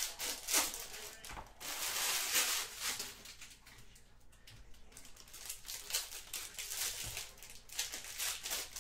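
Baseball card packs and cards being handled: wrappers crinkling and cards rustling and sliding, in short uneven bursts with a quick run of light clicks near the end.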